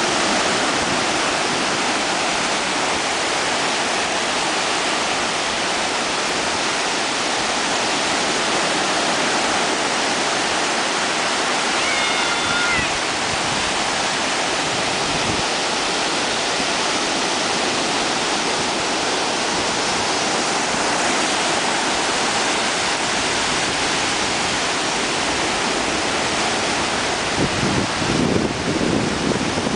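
Ocean surf breaking and washing up the shallows in a steady rush, with wind buffeting the microphone near the end.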